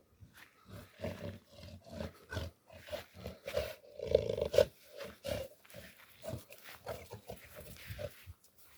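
Cats growling in short, irregular bursts, loudest about four seconds in.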